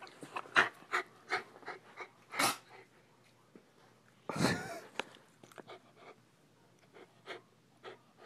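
West Highland white terrier sniffing right at the microphone: a run of short breathy puffs over the first three seconds, then one longer, louder puff about four and a half seconds in, then a few faint ticks.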